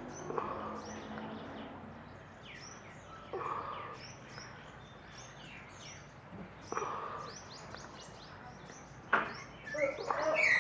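Many small birds chirping and twittering, a chorus of short high notes. A few louder calls come through, and the sound grows louder and busier about nine seconds in.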